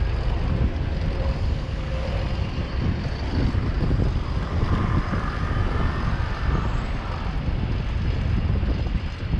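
City street traffic heard while riding a bicycle, with wind rumbling on the microphone; a faint higher whine rises above it about halfway through.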